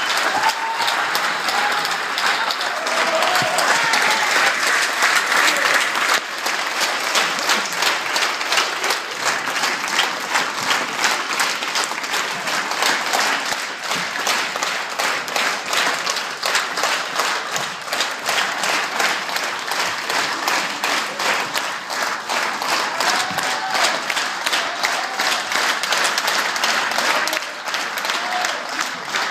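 A theatre audience applauding a curtain call. The clapping grows into a steady, regular beat from about eight seconds in.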